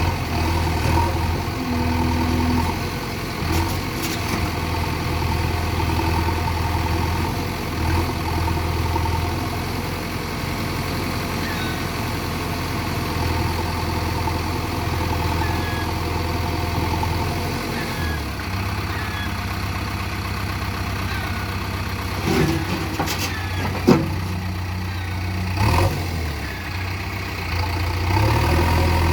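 JCB 3DX backhoe loader's diesel engine running steadily with a low hum. Several sharp knocks come near the end, one louder than the rest.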